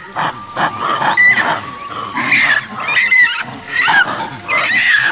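Japanese macaques screaming in a fight: a run of shrill, wavering screams and screeches, one after another, from several monkeys.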